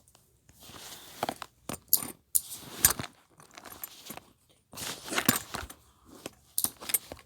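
Metal handcuffs and shackles clinking and rattling as someone works at getting out of them, with rustling between several sharp clinks.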